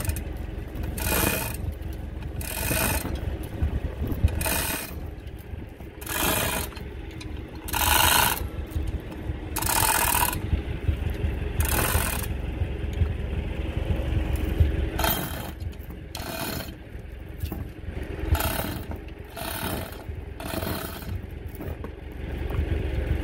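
Hand chain hoist being worked in repeated pulls, its chain rattling and ratcheting through the block in short bursts every second or two as it lifts a heavy mower cutter bar. A steady low rumble runs underneath.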